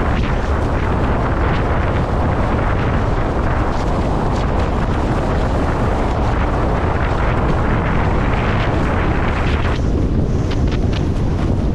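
Strong wind, about 20 to 25 knots, buffeting the microphone of a windsurfer under sail, a loud, steady rumble and rush with water hiss. Near the end a few short splashes come through as the board hits the chop.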